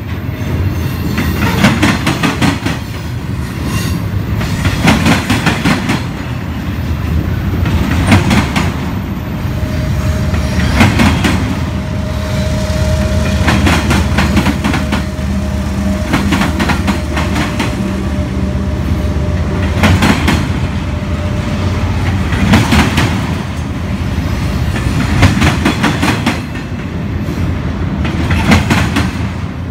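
Union Pacific double-stack container train passing, its wheels clattering over rail joints in repeated bursts every few seconds over a continuous rolling rumble. Midway, a mid-train distributed-power diesel locomotive passes with its engine running and a steady whine.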